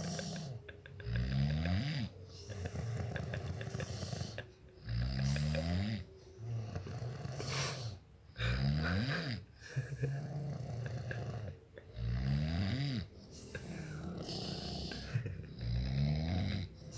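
A man snoring in deep sleep, with a loud snore starting about every three and a half to four seconds, five in all. Each snore is followed by a softer, drawn-out sound before the next one.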